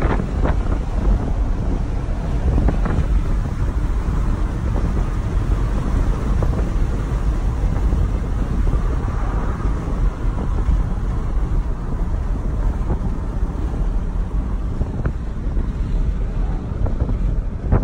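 Steady in-cab rumble of a 1996 single-cab pickup cruising at highway speed: engine, tyre and wind noise together.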